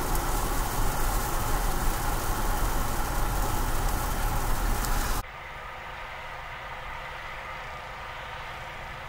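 Loud steady road and wind noise of a vehicle driving on a wet, icy highway in sleet, cutting off suddenly about five seconds in. A quieter steady traffic hum follows from a long queue of stopped semi trucks, their engines idling.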